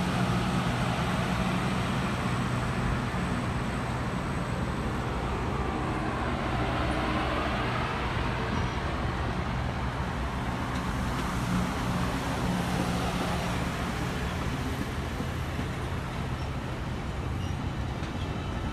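Metra bi-level gallery passenger cars rolling past on the track, a steady rumble of steel wheels on rail with a low hum underneath.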